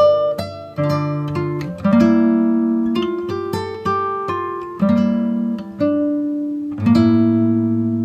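Background music on a plucked guitar: picked notes ringing out over chords that change every second or so.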